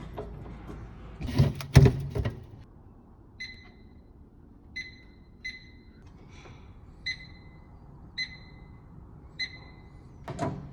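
A few handling knocks early on, then about seven short, high electronic beeps at uneven spacing, each dying away quickly, like a microwave's keypad beeping as buttons are pressed.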